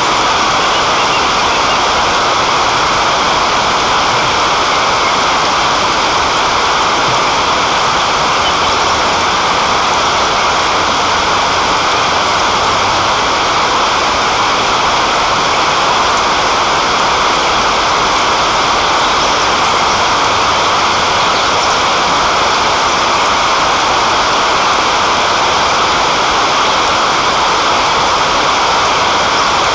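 Rain falling steadily, a loud, even hiss that does not let up.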